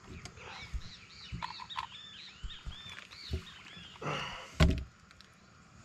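Birds calling repeatedly in short arched chirps. About four and a half seconds in, a brief loud thump with rustling stands out above them.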